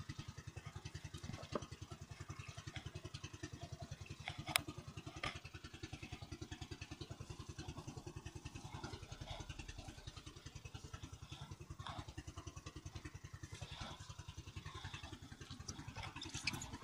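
Small boat engine running with a steady, rapid pulse, with a few sharp knocks on top, the loudest about four and a half seconds in.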